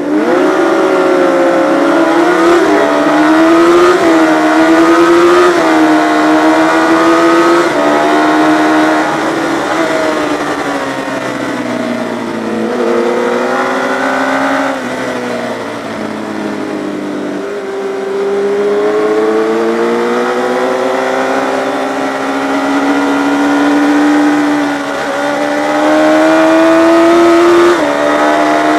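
Yamaha FZ600 inline-four race bike at full race pace, revs climbing and dropping as it is ridden hard round the circuit, with a sudden drop in pitch at each gear change, several times over.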